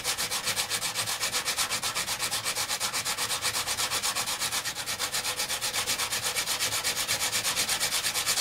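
A carbon brush for an angle grinder rubbed by hand back and forth on the face of a flat abrasive grinding disc, quick even strokes about six a second, shaving a little off its thickness to fit the brush holder. The scraping stops suddenly near the end.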